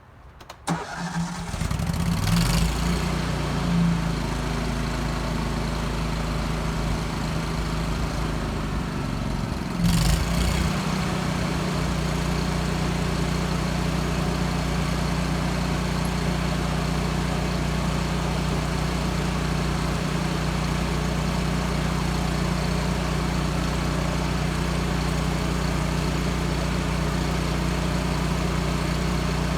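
Miller Trailblazer 325 welder-generator engine coming up to speed about a second in, its pitch shifting over the next few seconds and changing again about ten seconds in, then running steadily under the load of the plasma cutter and air compressor.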